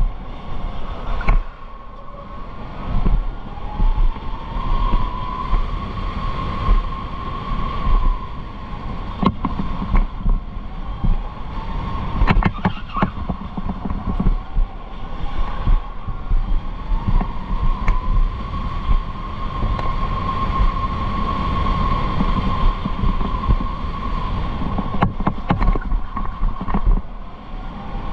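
Electric go-kart running on track: the motor's whine rises and falls in pitch with speed over a rough rumble from the chassis and tyres. A few sharp knocks cut through, a cluster of them in the middle and another near the end.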